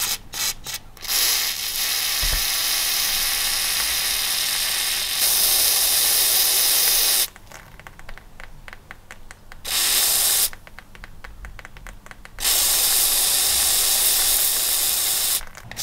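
WD-40 aerosol can spraying penetrating oil through its red straw onto a rust-seized bolt, hissing in three spells: a long one of about six seconds, a short one near ten seconds, then about three seconds more. A few light clicks come in the first second.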